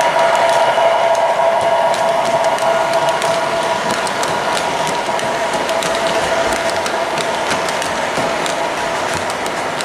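MTH Premier O-gauge three-rail model train running past: a steady drone from the SD70M locomotive that fades as it moves off, with the passenger cars' wheels clicking over the track joints.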